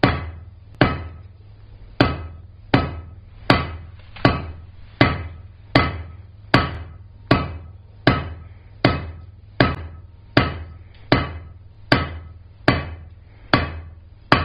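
Rounding hammer striking a 3/8-inch square steel bar on an anvil, drawing out a taper: steady, evenly paced blows about every three-quarters of a second, each with a short ring.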